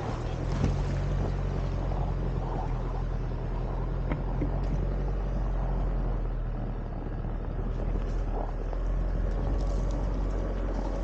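A vehicle engine running steadily with a low, even hum, and a couple of faint knocks.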